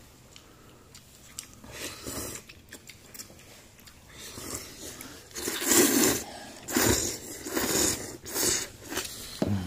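A man slurping glass noodles from a bowl: several loud, noisy sucking slurps, the loudest about six seconds in.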